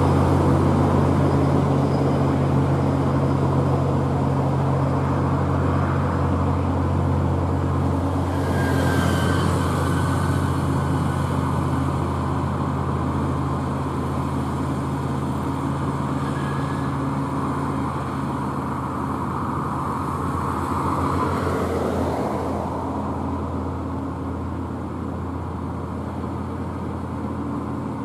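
UD Quester heavy diesel truck laden with steel reinforcing bar, its engine labouring under load as it crawls up a steep hill: a steady low drone that slowly fades near the end.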